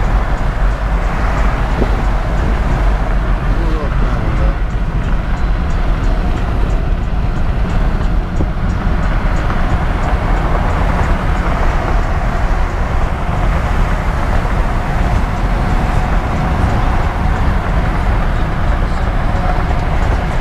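Steady road and wind noise inside a moving car, with a strong low rumble.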